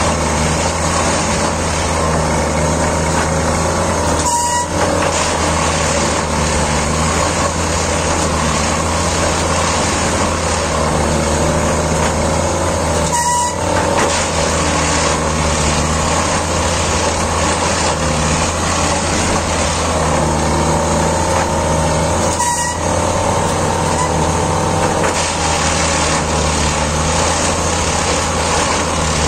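Plasser & Theurer Unimat 08-275 track tamping machine at work: its diesel engine and hydraulic tamping gear running loudly and steadily, with a brief break in the noise about every nine seconds.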